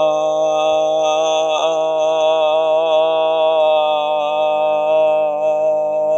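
A man's voice holding one long, low, chant-like drone, with a strong single overtone ringing clearly above the low note, as in overtone or throat singing. The drone is held steady with a slight waver.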